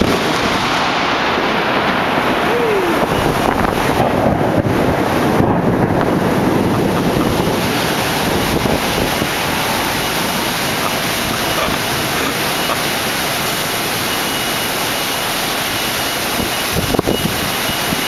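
Heavy storm rain pouring down steadily with wind, an even rushing hiss.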